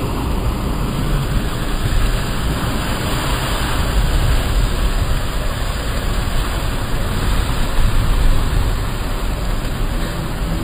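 Nissan Patrol 4x4 driving through a deep muddy puddle: its engine runs under load amid a continuous rush of splashing water.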